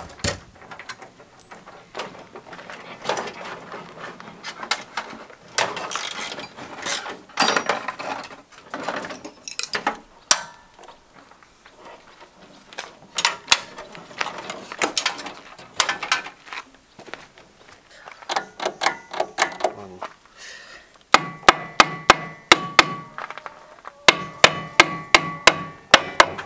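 Hammer blows and tool knocks on metal: scattered knocks and scraping, then, about five seconds before the end, a steady run of ringing hammer strikes, about three a second.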